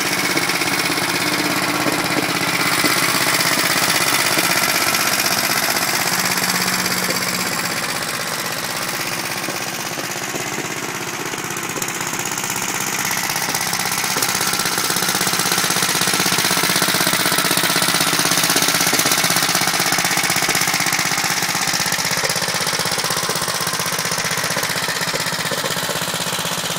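1960 Gravely L walk-behind tractor's single-cylinder engine running steadily, with a rapid, even firing beat.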